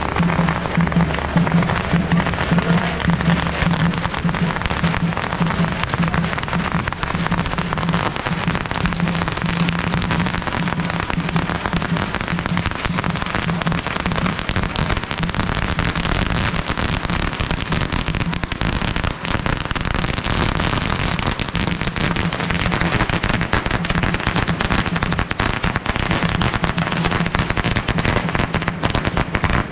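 Long strings of firecrackers going off in a continuous rapid crackle of pops, with a low drumbeat underneath.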